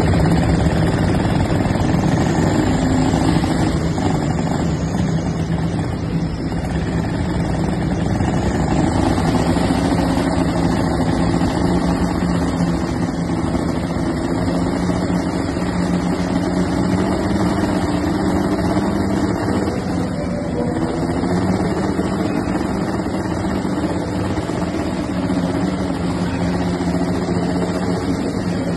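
Diesel garden tractor engine working hard under load while pulling a weight-transfer sled. It makes a steady, loud drone whose pitch wavers slightly as the load changes.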